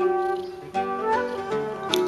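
Instrumental background music, a melody of distinct notes changing every fraction of a second.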